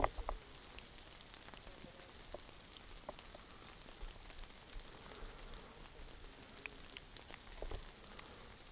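Faint, irregular crackling and light ticks of a person moving slowly on foot through snow and brushing past conifer branches, with a single knock at the very start.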